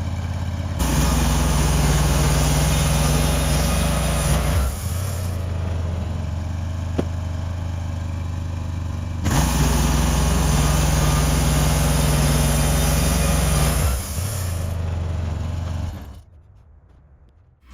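Sawmill engine running, twice revving up for several seconds with a loud hiss, typical of the blade working through a cut. The sound fades away in the last two seconds.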